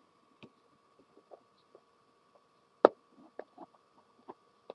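Small scattered clicks and taps of wire leads being handled against a hard surface, with one sharper click about three seconds in, over a faint steady whine.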